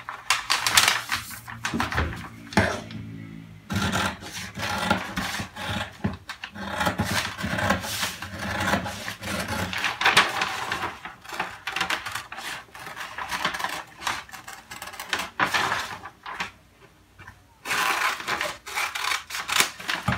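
Stiff kraft paper crinkling and rustling as it is folded and cut with scissors along a pattern line, with a short pause about three-quarters of the way through.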